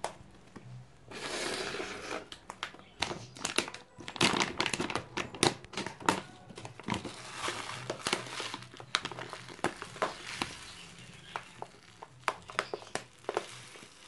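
Plastic pouch of bird egg food crinkling and rustling as it is handled and opened, in many short irregular crackles with brief rustling hisses.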